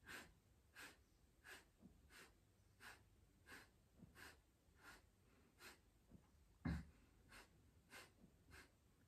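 A woman's rapid, forceful Kapalabhati breathing: short, sharp exhalations in a steady rhythm of about three every two seconds, each a quick puff of air. One exhale, about two-thirds of the way through, is stronger and carries a low thump.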